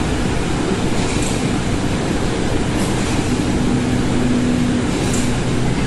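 Veneer press dryer running steadily in a plywood mill: a continuous loud mechanical drone with a low hum. A few faint, short hisses sound over it.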